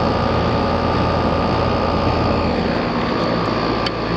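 Outdoor air-conditioning condensing unit running: a steady rush of the fan with a low compressor hum and a thin steady whine. The low hum drops back a little after about two and a half seconds.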